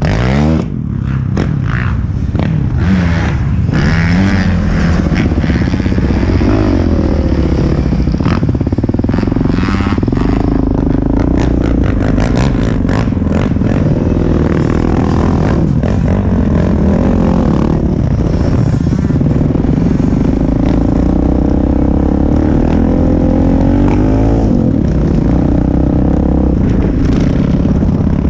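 Sport quad ATV engine running and revving, its pitch rising and falling with the throttle, with scraping and clattering as it rides a sandy trail.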